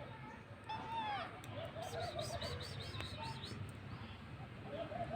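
A cat meows once, about a second in, with a falling end. Birds chirp and coo in the background.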